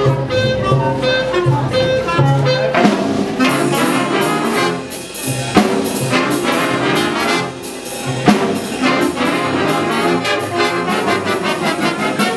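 School jazz big band playing live, saxophones over low repeated bass notes for the first few seconds, then trumpets and trombones come in for the full ensemble. Two sharp accents land about halfway through and again a few seconds later.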